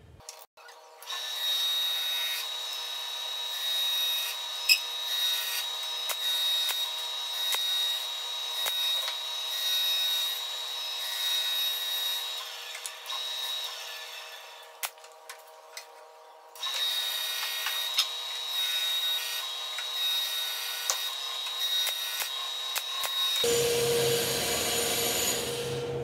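Wood being handled and rubbed as the front and back of a small birdhouse box are glued and fired together with a pneumatic brad nailer, with a few sharp nailer-like clicks and a steady high whine underneath. The sound drops out briefly about halfway through.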